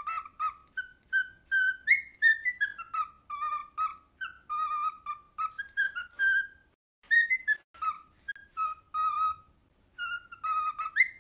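Cockatiel whistling a tune: a string of short, clear whistled notes stepping up and down in pitch, with a couple of brief pauses.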